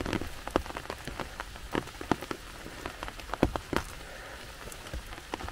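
Rain falling: a steady hiss with irregular sharp taps of single drops.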